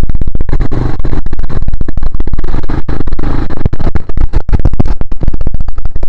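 Loud, distorted wind buffeting and crackle on the microphone of a camera riding on a moving quad bike, a dense rumble with constant jolting crackles and no steady engine note showing through.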